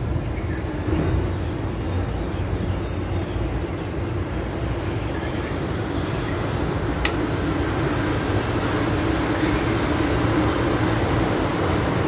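Steady low rumble with a faint hum that grows a little louder in the second half, a few faint high chirps, and one sharp click about seven seconds in.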